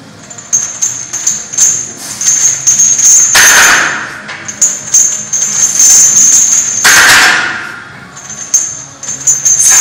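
Steel chains hung from a barbell clinking and jingling as the bar is pressed up and lowered through close-grip bench press reps, with a loud rushing noise twice, about three and a half seconds apart.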